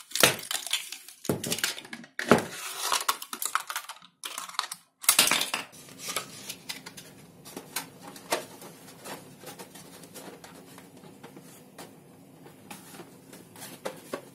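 Thin plastic bottle wall crinkling and clicking as it is handled, in loud crackly bursts for about the first five seconds. After that come quieter light taps and rubs of the plastic canopy against the fuselage over a faint steady hum.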